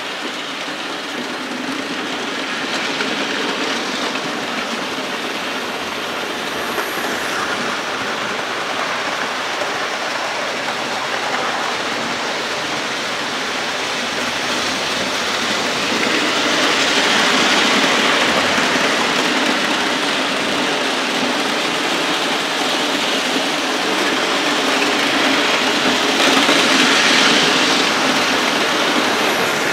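OO gauge model trains running on the layout: a steady rumble and clatter of metal wheels on rail and motors hauling rakes of coaches. It swells twice, about halfway through and again near the end, as trains pass close by.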